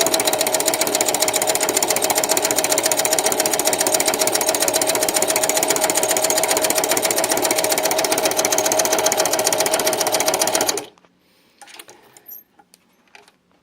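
Singer sewing machine running steadily at speed, stitching a zigzag with a flower-stitch presser foot fitted and the feed dogs lowered: a steady motor whine over rapid needle clatter. It stops suddenly about eleven seconds in, leaving a few faint handling clicks.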